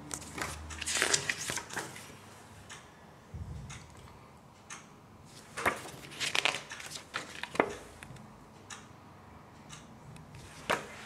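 Paper pages of a CD booklet being turned and handled: a series of short, irregular rustles.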